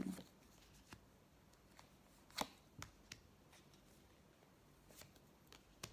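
Near silence broken by a few faint taps of tarot cards being handled as a card is drawn, the clearest about halfway through.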